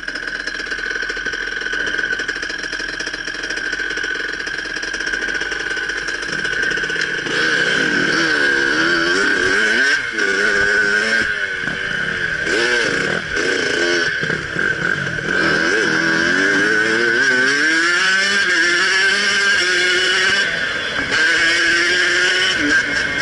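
Motocross bike engine running, then from about seven seconds in revving up and down over and over, its pitch rising and falling as the bike is ridden and shifted.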